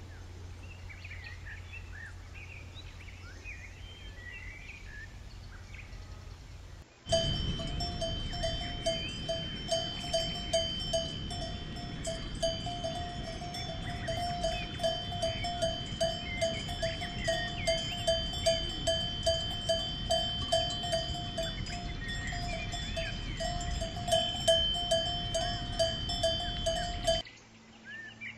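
Birds chirping faintly over a low hum, then, about seven seconds in, a cow's neck bell starts ringing in quick repeated strokes. It goes on for about twenty seconds with birds chirping behind it, and stops abruptly near the end.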